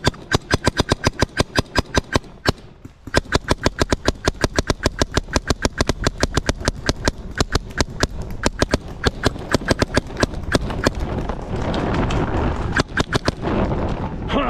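Mechanical paintball marker firing a long string of rapid shots, about six a second, with a short break about two seconds in. The shots thin out after about eleven seconds, giving way to a steady rushing noise with a last few shots.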